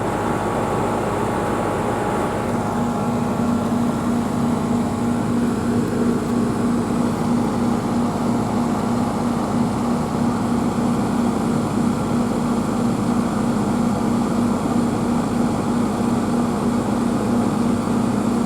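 Heat pump outdoor unit running steadily, a constant low compressor hum over the even rush of the condenser fan, while the system is being topped off with refrigerant.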